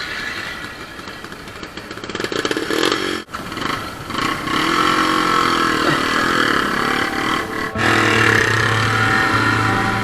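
Yamaha TW200 single-cylinder dirt bike engine running and revving as it rides off-road, the pitch rising and falling with the throttle. The sound breaks off abruptly twice and picks up again at a different engine note.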